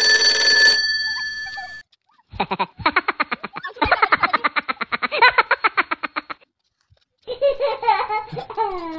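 Edited-in comedy sound effects: a short bell-like ringing, then two long runs of rapid laughter-like pulsing, the second sliding down in pitch near the end.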